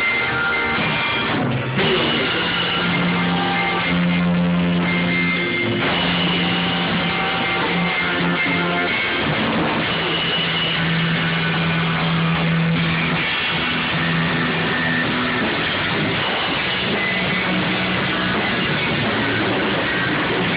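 Rock band playing a song in rehearsal: guitar over a drum kit, with long held low notes shifting every second or two.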